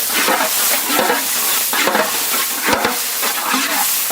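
Chopped onions and tomatoes frying in sesame oil with a steady sizzle, stirred with a spoon that scrapes the pan about five times.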